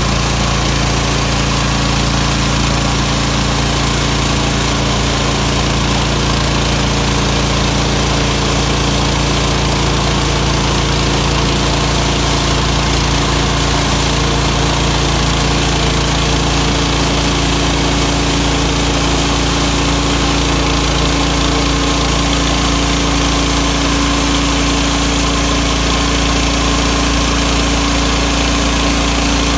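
The small engine of a sawmill running steadily at a constant speed.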